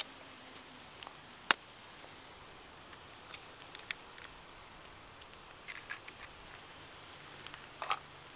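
An egg cracked with one sharp knock about a second and a half in, followed by a few faint clicks and taps.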